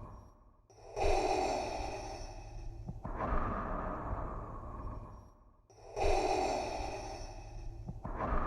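Darth Vader's mechanical respirator breathing: slow hissing in-and-out breaths through a regulator, about two full breath cycles, each breath lasting two to three seconds.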